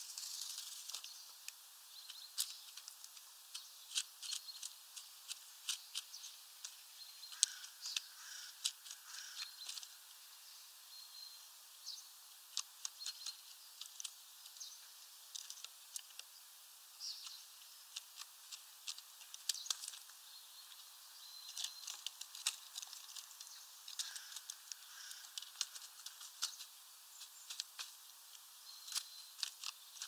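European starlings pecking at seed on a window feeder tray: many quick, irregular taps and clicks, with short high chirps now and then.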